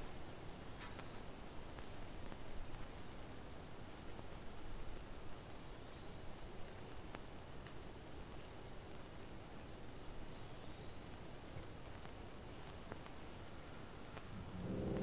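Quiet woodland insect ambience: a steady high-pitched insect drone with a short faint chirp every second or two.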